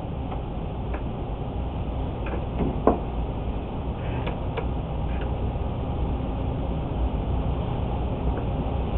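Steady low room hum and rumble, with a few faint ticks and a short knock about three seconds in.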